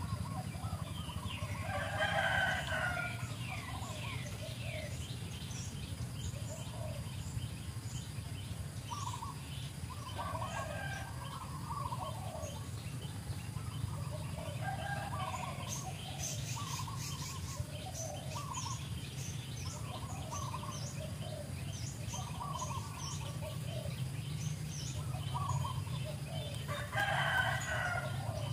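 Domestic fowl calling: many short clucking calls, with a louder crow about two seconds in and another near the end. Small birds chirp faintly over a steady low hum.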